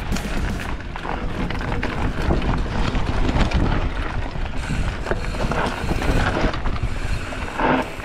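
Wind rushing over the microphone of a moving bicycle on a dirt trail, with constant rapid, irregular rattling and crackling from the ride.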